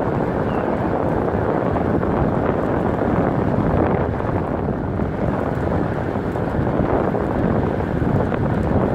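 Steady rush and rumble of a moving vehicle heard from inside at the side window, mixed with wind noise, even in level throughout.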